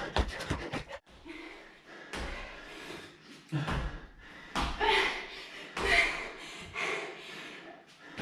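Rapid thuds of feet landing on a wooden floor from jumping burpees for about a second, then heavy exertion breathing, with hard exhales about once a second as the exercise goes on.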